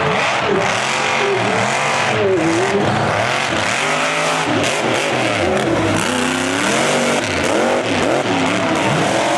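Mega truck engine revving hard at full throttle, its pitch climbing and falling again and again as the truck tears around a dirt course.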